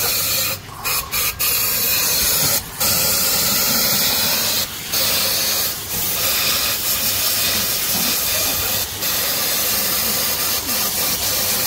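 Loud, steady hissing noise with a few brief dips.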